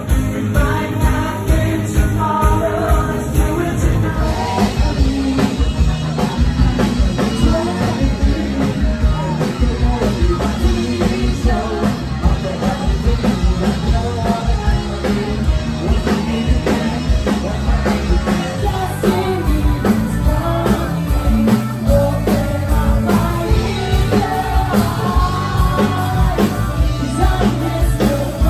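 Live pop-rock cover band playing a song at full volume: singing over a steady drum beat, bass and guitar.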